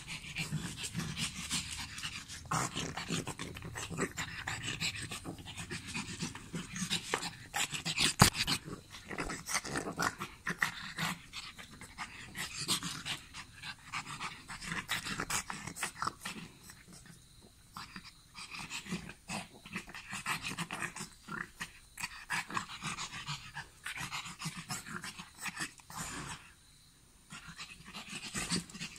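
A pug panting and sniffing noisily as it noses and mouths at a person's hand: quick, irregular short breaths, with one sharp click about eight seconds in.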